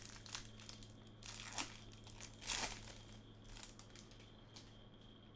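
Trading-card pack wrapper crinkling faintly as the cards are slid out and handled, in scattered soft rustles with one louder crinkle about two and a half seconds in.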